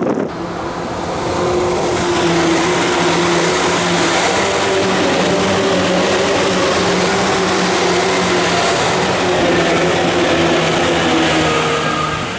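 Tokyu 8500 series electric train running, its traction motors giving a steady multi-tone whine over loud running noise that swells about a second and a half in and eases near the end.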